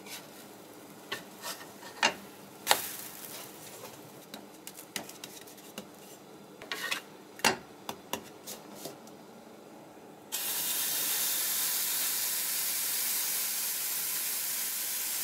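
Wooden spatula scraping and knocking against a frying pan as a pancake is flipped, with a few sharp knocks. About ten seconds in, a sudden steady hiss of fresh pancake batter sizzling in the hot pan begins.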